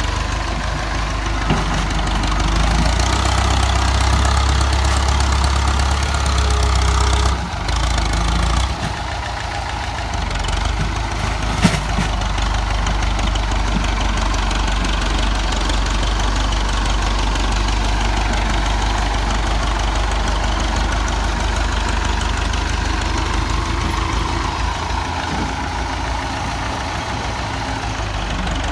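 Tractor engine running steadily under load, louder for the first several seconds with two brief drops in its note, and a single sharp knock about halfway through.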